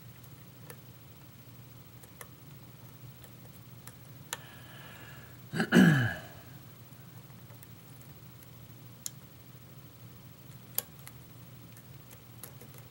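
Faint, irregular clicks of lock picks working the pin stack of a pin-tumbler challenge lock while it is being picked toward a deep false set. About six seconds in, a short, louder sound with falling pitch.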